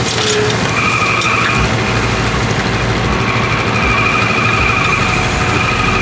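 New Holland skid steer's engine running, with a high whine that comes in about a second in, drops out, and returns from about three seconds on as the loader bucket tips. Dirt and brush spill from the bucket into a metal dump cart.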